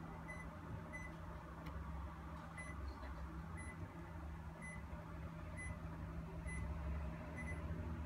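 Short, high electronic beeps, roughly one a second, each a single clear tone, as buttons on the Toshiba mini-split air conditioner's remote are pressed. The unit is acknowledging the remote's commands. A steady low hum runs underneath.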